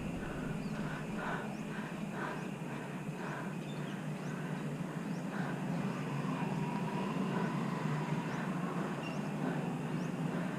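Steady low road and traffic noise, with faint regular ticking, about two or three a second, through the first half.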